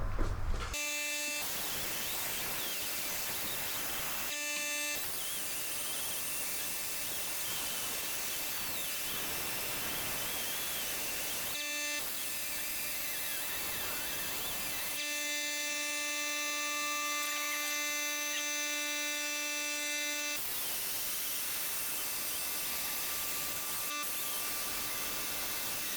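A small power tool, such as an abrasive disc or wire wheel on a rotary tool, running steadily with a pitched whine while it scrubs off old gasket material. The sound changes abruptly several times, near 4, 12, 15 and 20 seconds in.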